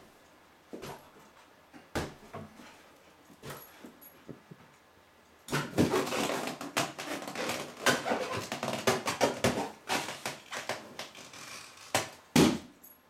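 A Staffordshire bull terrier cross playing with a rubber balloon. Scattered taps come first, then several seconds of dense rubbing and squeaking as the dog bites and pushes the balloon. Near the end, a single loud bang as the balloon bursts in his mouth.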